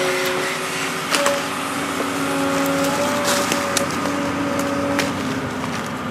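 Volvo 210 excavator's diesel engine running steadily, with a few sharp cracks of twigs and brush snapping.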